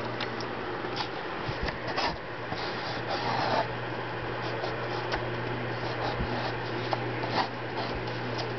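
Room tone: steady hiss and a constant low hum, with a few faint clicks and a brief rustle about two and a half to three and a half seconds in.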